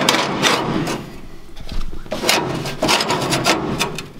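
Sheet-steel plates being handled against a car floor panel: irregular scraping and knocking of metal on metal as they are slid and pressed into position, with a quieter spell about a second in.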